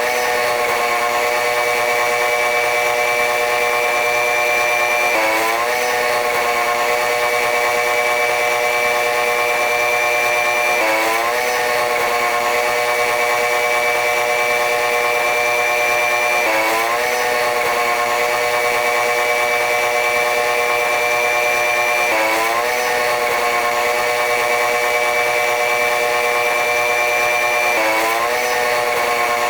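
Train running noise: a steady mechanical drone with a high whine and many engine-like tones. About every five and a half seconds the tones bend upward together and the whine dips and then creeps back up.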